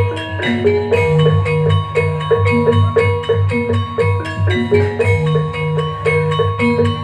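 Gamelan-style music for a jaranan dance: metallophones struck in a repeating melodic pattern over a quick, steady drum beat.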